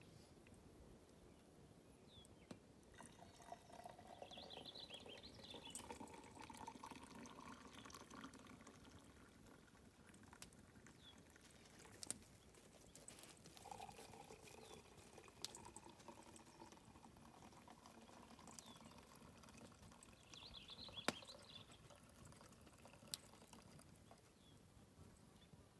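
Faint sound of coffee being poured in two spells, the second about thirteen seconds in, with a few light clicks and clinks between.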